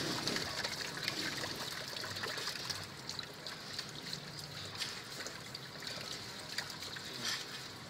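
Water from a hose running steadily onto an opened radiator core and trickling down through its tubes, which are being rodded and flushed clean. There are a few faint clicks.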